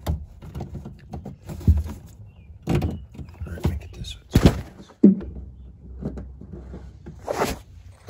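A plastic wiring-harness connector is handled and pushed into the door-closer motor's socket inside a car door: a series of separate knocks and clicks, the loudest about four and a half seconds in. A brief rustle follows near the end.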